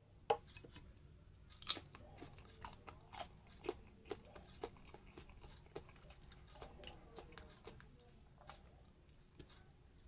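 Close-up chewing of crunchy mango: a run of sharp crunches and wet mouth clicks, about two a second, thinning out near the end.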